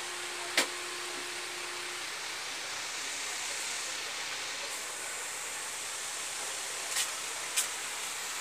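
Steady hiss of background noise, with one sharp click about half a second in and two fainter clicks near the end.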